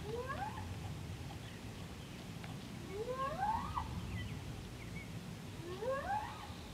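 An animal call: a rising, wavering note with overtones, given three times about three seconds apart, over a low steady background rumble.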